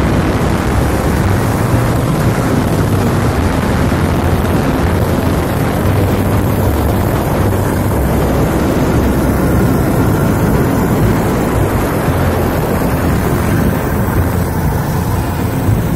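Long-tail surface-drive boat motor running steadily at speed, its engine drone mixed with the rush of water off the hull and propeller.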